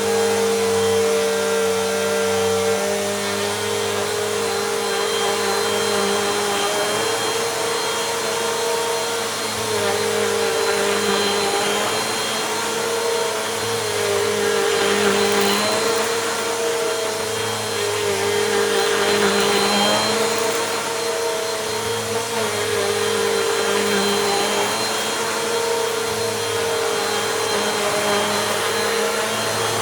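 Bissell Compact vacuum cleaner running over a rug, its motor pitch dipping and recovering every few seconds as it is pushed back and forth in passes.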